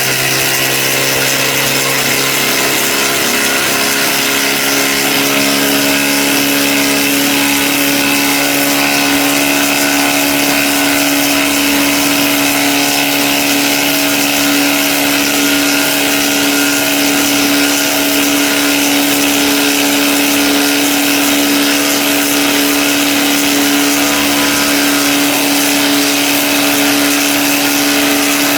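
Cordless impact driver hammering continuously under load at a steady pitch.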